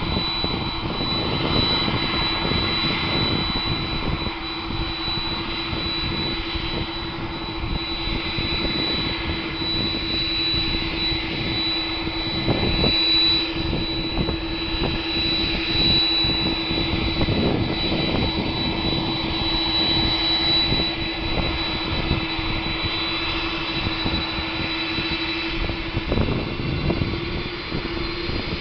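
Airliner jet engine running: a steady mid-pitched hum and a thin high whine over a rough, fluttering low rumble. The uploader considers the noise from the engine strange.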